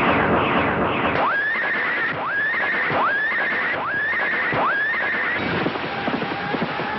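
Horse neighing five times in a row, about a second apart, each call sweeping up and then holding high. Falling whooshing tones come in the first second, and a run of quick knocks comes near the end.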